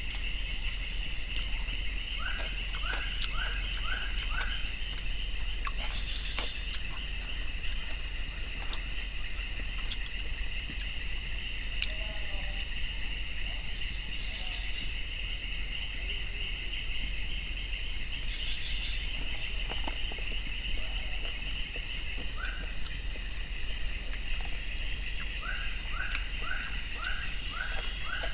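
Night insect chorus of crickets: steady, fast-pulsing high trills layered over a continuous shrill band. Twice, once a few seconds in and again near the end, another animal gives a run of four or five short rising calls.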